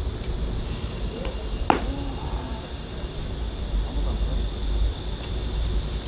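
Insects chirping in a steady, evenly pulsed rhythm over a low rumble of wind on the microphone, with a single sharp crack about two seconds in.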